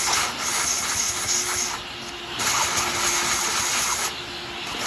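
Vacuum cleaner running, its nozzle held to a freshly tapped bolt hole in a chainsaw engine case to suck out the metal shavings from tapping. A steady rushing hiss with a faint hum underneath, dipping in level twice.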